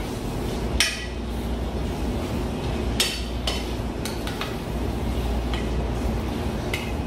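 A metal utensil stirring flour into shrimp and fish in a stainless steel pan, scraping and clinking against the pan at irregular moments, over a steady low hum. This is the flour being mixed in to thicken the étouffée.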